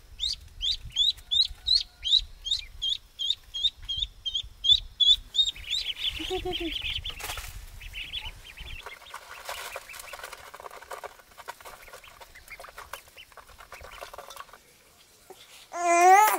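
Ducklings peeping, a quick run of thin high calls about three or four a second that fades out about six seconds in. Near the end a small child's voice breaks in, crying and babbling.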